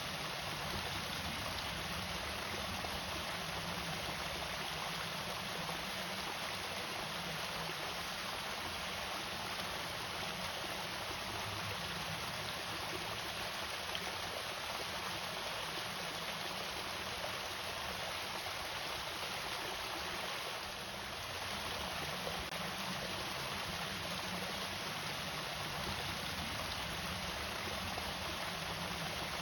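Water pouring steadily over a small irrigation waterfall, an even, unbroken splashing rush.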